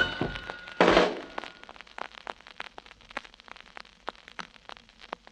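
A song's last chord cuts off about a second in, then the quiet groove between tracks on a vinyl LP: irregular surface clicks and pops.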